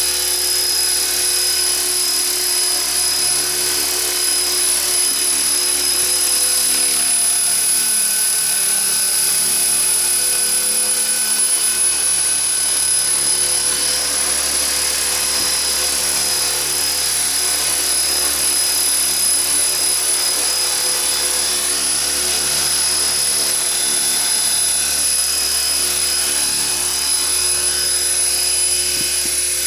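Radio-controlled model helicopter hovering and flying low, its motor and rotor making a steady high whine.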